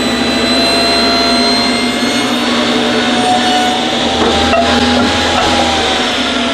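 Craftsman table saw running, its blade ripping a 2x4 lengthwise and then spinning free once the piece is through. There is a single knock about four and a half seconds in.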